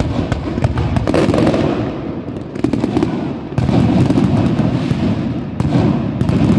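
Fireworks display firing in a continuous barrage: rising comets and aerial shells bursting, with many bangs and dense crackling over a low rumble. It grows louder about three and a half seconds in.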